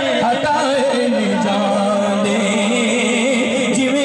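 A man's solo voice singing a Punjabi devotional kalam into a microphone, amplified. He sings ornamented, wavering phrases, then holds one long note from about a second in.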